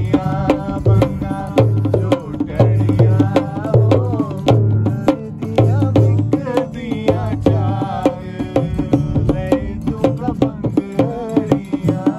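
Acoustic guitar and a hand-played dholak barrel drum in a steady folk rhythm. The drum's deep bass strokes drop away for a few seconds about two-thirds of the way through, then return near the end.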